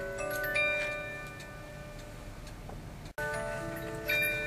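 Black Forest cuckoo clock's music box playing its tune, plucked notes ringing and fading, over the clock's steady ticking. The sound drops out for an instant about three seconds in, then the tune carries on.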